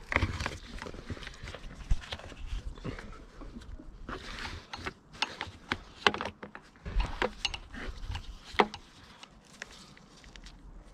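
Scattered clicks, taps and rustling from hands working parts and wiring into an ATV while fitting heated grips, with a few sharper knocks and quieter handling near the end.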